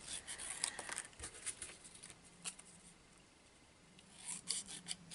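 Scissors cutting designer paper in a few short, faint snips, with light paper handling between them.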